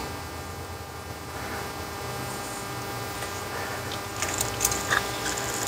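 Screwdriver blade working into the gasket seam of a Kelsey-Hayes ABS module housing, with light scraping and a scatter of sharp clicks starting about four seconds in, over a steady low hum.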